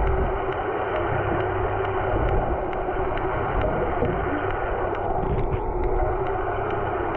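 Muffled underwater sound picked up by a camera in its waterproof housing: a steady hum and rushing water noise, with faint regular ticks about two a second.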